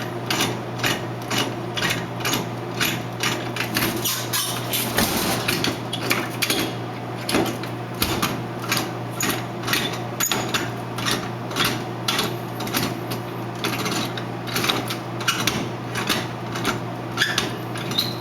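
Steady mechanical clicking, about two to three clicks a second, as the soda vending machine door's T-handle lock is turned to screw the door shut, over a steady low hum.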